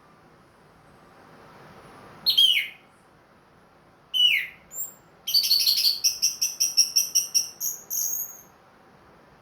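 Orange-headed thrush (anis merah) singing: two falling whistled slurs, then a quick run of high notes, about five a second for nearly three seconds.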